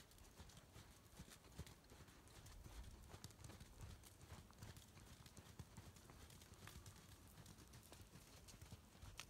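Faint hoofbeats of a horse trotting on sand arena footing.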